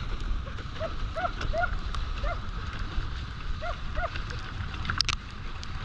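A running dog giving short, high yips, about eight of them at uneven intervals, over a steady low rumble of wind on the microphone, with one sharp click about five seconds in.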